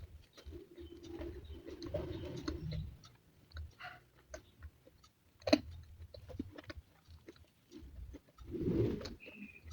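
Close-miked chewing of food, with scattered wet mouth clicks and one sharp click about five and a half seconds in. A short low hum comes near the end.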